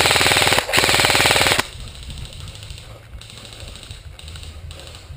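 Airsoft gun firing on full auto close by: two long bursts of rapid clicking shots with a brief pause between, ending about a second and a half in. Shorter, quieter bursts of full-auto airsoft fire follow.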